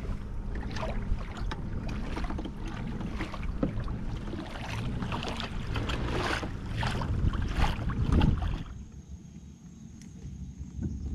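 Choppy lake water slapping and splashing against a kayak's hull, with wind buffeting the microphone. About 8.5 seconds in the sound cuts to a quieter lapping, with a faint steady high tone.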